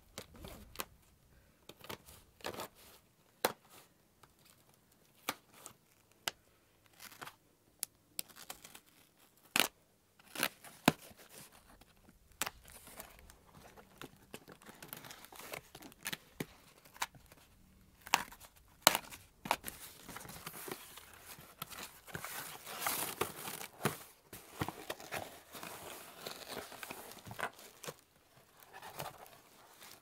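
A small knife slitting the packing tape on a cardboard box in short, scratchy cuts. From about two-thirds of the way through, the tape tears and the box flaps and packing paper rustle and crinkle as the box is opened.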